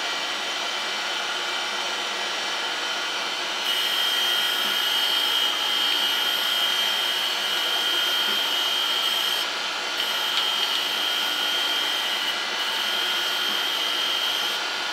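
Surface grinder running with its resin-bonded diamond wheel. About four seconds in the wheel starts cutting across an ink-marked metal test plate, adding a steady high hiss and whine that breaks off briefly a couple of times as the table moves. This is a check pass after the wheel has been lowered a tenth, to see how evenly the freshly dressed wheel cuts.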